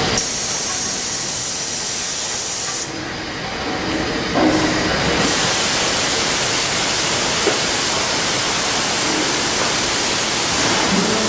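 Loud, steady factory-floor noise from an automated CRT TV assembly line: a dense hiss of machinery and air with no clear rhythm. The hiss thins out for a couple of seconds about three seconds in, and a short knock sounds about four and a half seconds in.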